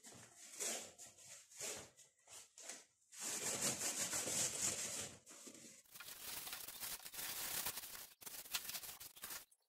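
A sponge scrubbing a wet plastic vegetable basket: short separate rubbing strokes at first, then longer, steadier scrubbing from about three seconds in.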